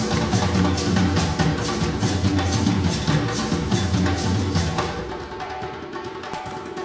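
Live ensemble music from a conducted improvisation, with percussion strokes over a low bass line. About five seconds in the bass and the louder playing drop out, leaving quieter percussion.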